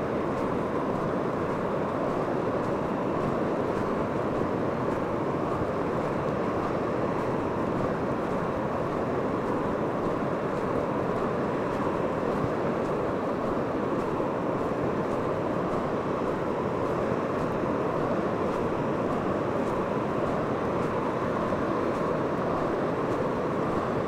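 Ocean surf and wind on an open beach, a steady, even rushing noise with no breaks or single wave crashes.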